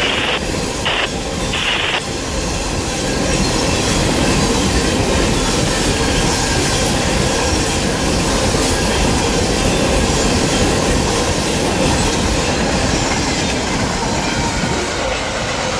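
Refrigerated boxcars of a freight train rolling past at speed: a steady rumble of steel wheels on rail. A high tone cuts in and out during the first two seconds, then the rumble grows louder and stays even.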